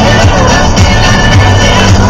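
Loud electronic dance music with a steady bass beat.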